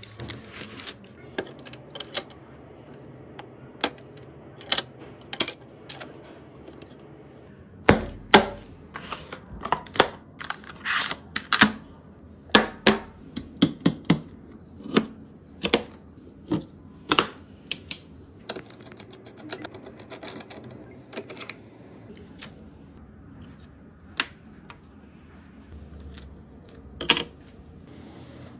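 Irregular sharp clicks and knocks of hard plastic and metal PC parts being handled and fitted into a case, busiest in the middle stretch.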